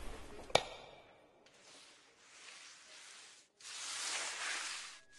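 A mop swishing across a hard floor in long, hissing strokes that swell and fade. A single sharp click comes about half a second in.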